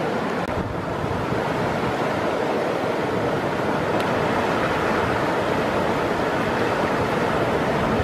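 River water rushing steadily past the bank, a continuous even noise.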